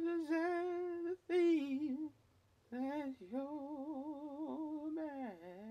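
A lone voice sings long, wordless held notes without accompaniment, in three phrases with short breaks between them. The pitch wavers in the last phrase.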